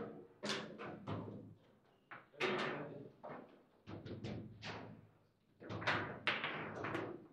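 Table football in play: sharp, irregular knocks and slams, a few a second, as the players' rod-mounted figures strike the ball and the ball bangs around the table, each hit ringing briefly through the table.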